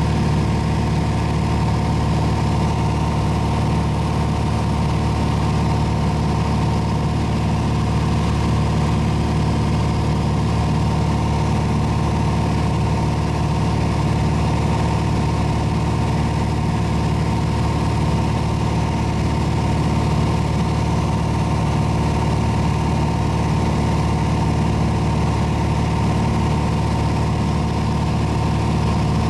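Light aircraft's engine and propeller droning steadily in level flight, heard from inside the cabin, with a constant pitch throughout.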